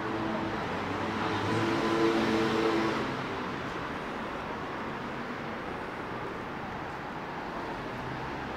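Street traffic noise: a steady hum of vehicles, swelling as one vehicle passes louder about two seconds in.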